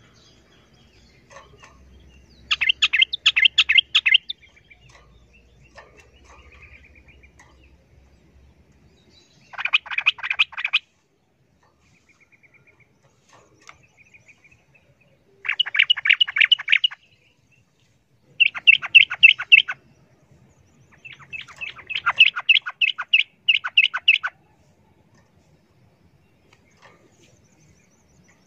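Yellow-vented bulbul (trucukan) giving fast, chattering runs of repeated notes, about five bursts of one to three seconds each with pauses between, the longest near the end.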